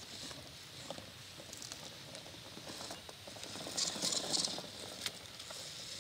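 Axial XR10 RC rock crawler's tyres and chassis clicking and scrabbling faintly over wood and dirt as it crawls, with a short burst of rustling scrapes about four seconds in.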